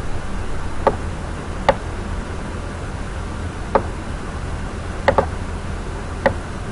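Computer mouse clicking: six sharp single clicks spaced irregularly, including a quick double-click near the middle, over a steady low hum and hiss from the recording.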